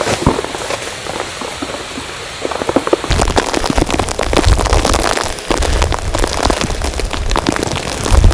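Dense patter of falling precipitation, a finer steady crackle for about three seconds, then a sudden change to a heavier patter with a low rumble of wind on the microphone.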